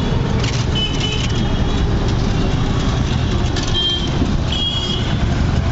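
City street traffic heard from a moving vehicle: a steady, loud low rumble of engines, tyres and wind, with three short high-pitched tones, about a second in, near four seconds and just before five seconds.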